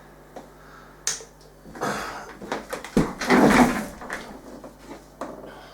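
Handling noise: a run of clicks and rustles, with a sharp knock about three seconds in, over a faint steady hum.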